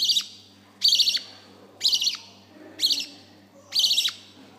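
Nine-day-old budgerigar chick begging while being hand-fed: a short, rapid chittering call repeated evenly about once a second, five times.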